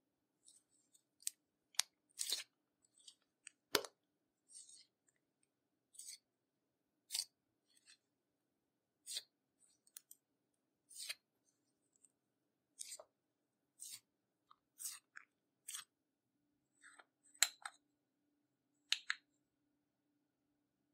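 Clear slime being worked by hand, giving short sharp wet clicks and crackles about once a second, with short gaps between them.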